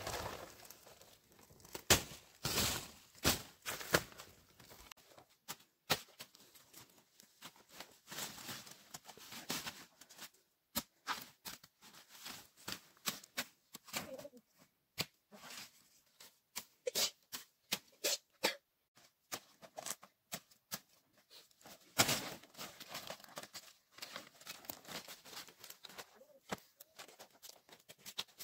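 Leaves being handled: large fresh leaves rustling as they are gathered and bundled, and dry fallen leaves crackling, in an irregular run of short scrapes and crackles, loudest about two seconds in and again about two-thirds of the way through.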